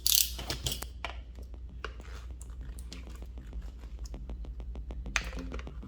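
Small plastic clicks and scrapes of a handheld barcode scanner being handled at the start of a repair, with a short scraping rush at the start and another about five seconds in.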